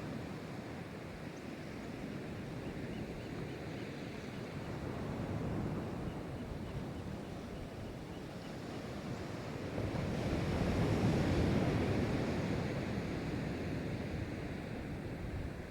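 Ocean surf rushing steadily, swelling louder as a wave breaks about ten seconds in and then easing off.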